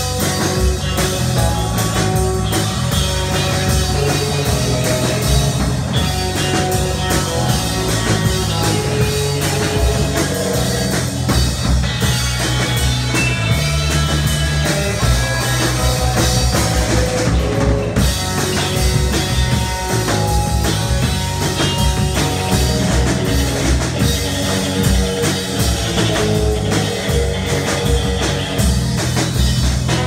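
Live rock band playing loudly: two electric guitars over a Gretsch drum kit.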